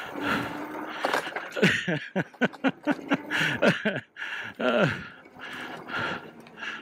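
Engwe Engine Pro fat-tyre e-bike rattling and knocking as it is ridden over rough singletrack, with many short clicks and knocks. Several short sounds falling in pitch come in among them, groan-like, the loudest about two to four seconds in.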